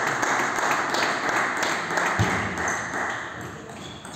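Table tennis ball served and played in a rally: sharp clicks of the ball on the bats and the table, with a low thud about two seconds in. Underneath is a dense murmur of hall noise that dies down about three seconds in.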